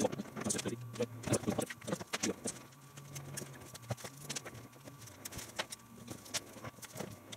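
Irregular plastic clicks, knocks and rattles of a quadcopter's long landing legs being handled and fitted onto the frame, over a faint steady low hum.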